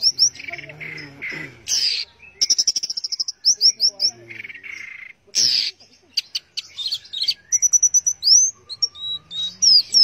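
Orange-headed thrush singing: quick runs of high chirps and trills in short phrases separated by brief pauses, with a few lower whistled notes.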